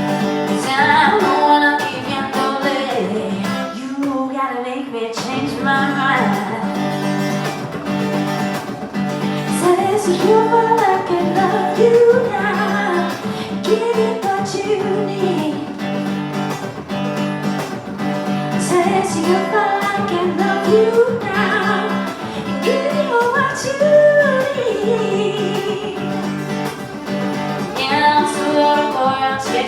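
A live song: a voice singing a melody over guitar chords.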